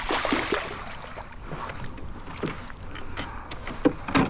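Small boat on the water with wind and water noise, and scattered light clicks and knocks from gear handling. There is a sharper knock near the end.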